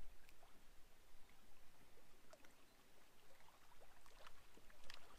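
Faint lapping of lake water against a rocky shore, with a few light clicks.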